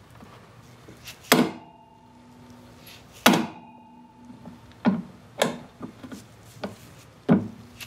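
Hand impact screwdriver struck with a hammer: five sharp blows at uneven intervals, the first two leaving a brief metallic ring. The blows drive and twist the bit to break loose a seized screw holding a car's windshield-washer sprayer.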